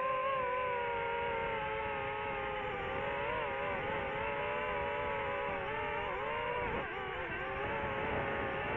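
Quadcopter drone's propellers whining steadily, the pitch wavering and dipping a little about seven seconds in.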